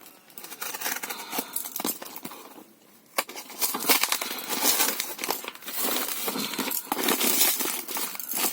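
Crinkling, crackling and tearing of tightly sealed shipping packaging being pulled open by hand, with scattered clicks. It gets louder and busier about three and a half seconds in.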